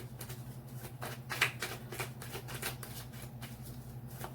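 A tarot deck being shuffled by hand: a steady run of quick, soft card clicks, over a steady low hum.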